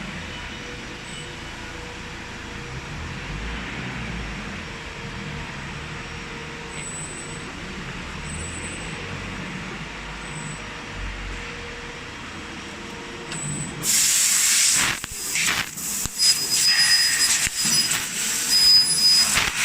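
Fiber laser cutting machine: a steady hum of the machine for about fourteen seconds, then a sudden loud hiss of assist gas blowing through the cutting head, broken by several short gaps.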